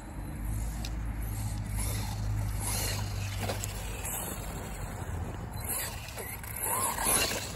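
Wltoys 104001 RC trophy truck on 6S power driving over grass, its electric motor running with a low steady hum and the tyres rustling. Near the end the motor's pitch rises and falls as the throttle is worked.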